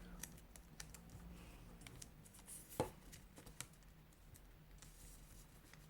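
Faint sounds of colored origami paper being folded and creased by hand: scattered soft ticks and rustles, with one sharper tap about three seconds in.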